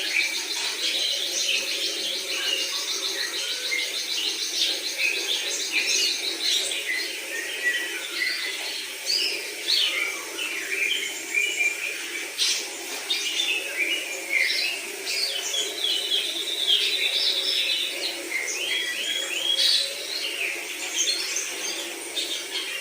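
Cucak hijau (green leafbird) singing a continuous, varied song of quick chirps, short whistled phrases and fast trills.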